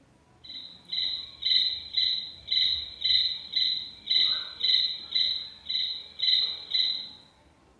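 Cricket chirping: a high, steady, even run of chirps, about two a second, stopping shortly before the end.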